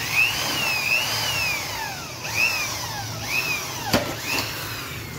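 Corded electric drill run in short bursts on a window frame, its motor whine rising and falling about five times as the trigger is squeezed and eased. A sharp click about four seconds in.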